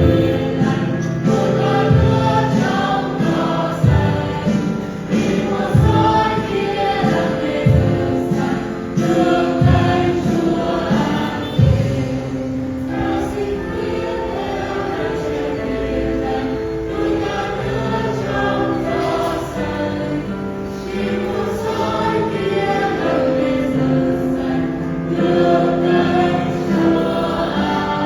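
A choir singing a Christian hymn with music accompaniment, a low thump marking the beat about every two seconds through the first half.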